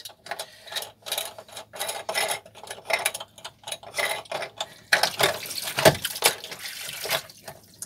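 Irregular plastic clicks and knocks as a boat's speed log paddlewheel transducer is handled in a sink of water, then about two seconds of water splashing and sloshing as it is rinsed.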